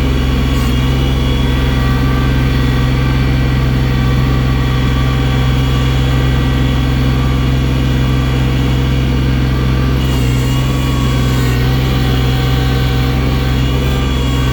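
Engine of a snow-clearing machine fitted with a loader bucket, running steadily under working load.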